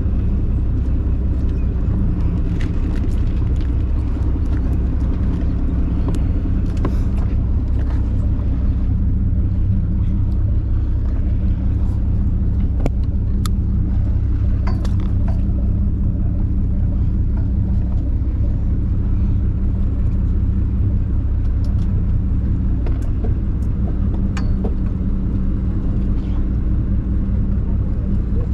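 Party fishing boat's engine running with a steady low drone, with scattered light clicks on top.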